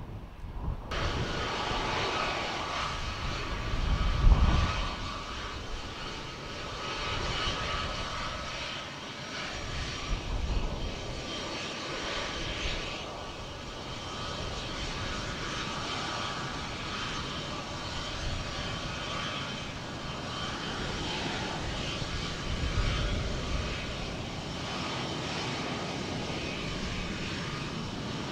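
Jet noise from a Boeing C-17 Globemaster III's four turbofan engines as it comes in to land and runs along the runway. A loud, continuous roar carries a steady whine and swells to a deep rumble about four seconds in, the loudest moment, with smaller swells later.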